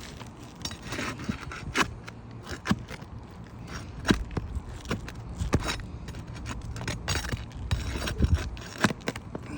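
Roofing nails being pried out from under asphalt shingles: scattered sharp clicks and knocks of metal on the nails, with gritty scraping against the shingles.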